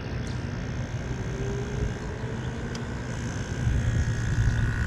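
GE 5,000 BTU window air conditioner running, its fan blowing air and its compressor, just switched on, humming steadily and quietly underneath. The sound is a steady low hum with a faint high whine over it, and it grows a little louder near the end.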